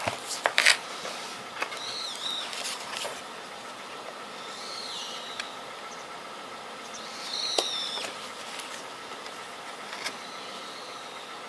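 Album packaging and cards being handled: a few sharp clicks and taps, with four short high chirps in the background.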